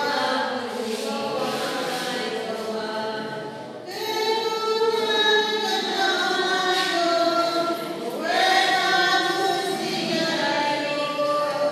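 A small group of women singing a hymn together in long, held phrases. A new phrase begins about four seconds in and again about eight seconds in.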